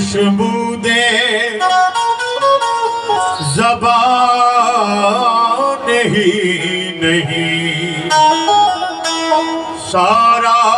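Live qawwali music, amplified: harmoniums playing a melody with singing over it, the pitch gliding and ornamented.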